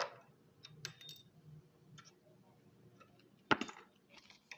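Scattered sharp clicks and knocks of small hard objects being handled, with a louder clack at the start and another about three and a half seconds in.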